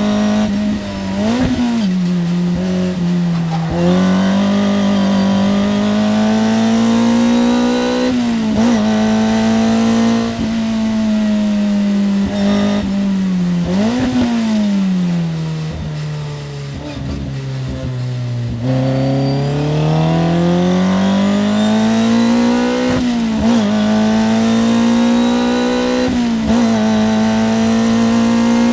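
Toyota 4A-GE five-valve (20-valve) four-cylinder engine of a racing car, heard onboard at speed on track, its exhaust and intake note climbing steadily in pitch with several brief sharp blips. A little past the middle the note falls for a few seconds as the throttle comes off, then climbs again under acceleration.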